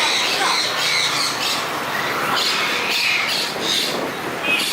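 Many caged birds squawking and chirping at once, a dense, continuous din of overlapping calls.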